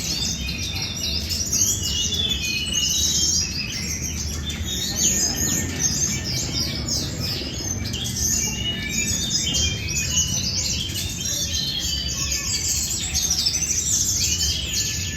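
Many songbirds singing at once: a dense, unbroken chorus of overlapping high chirps and song phrases, over a steady low background rumble.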